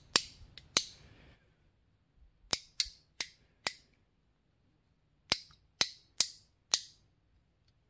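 Flex head of a Tekton 3/8-inch drive bent-handle ratchet snapping from one detent position to the next. It gives ten sharp metallic clicks: two near the start, then a group of four, then another group of four, each group spaced about two to three a second.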